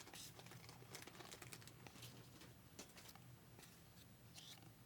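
Near silence with faint, scattered light ticks and rustles of trading cards being handled and sorted after a pack is opened.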